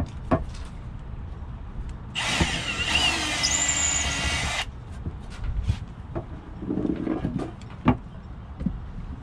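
Electric drill running in one burst of about two and a half seconds, a whine over rough noise, with scattered knocks and clicks of handling the work before and after.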